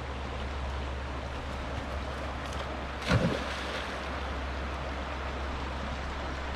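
Shallow river rushing steadily over its bed, with a low steady rumble under it. About three seconds in there is one brief bump.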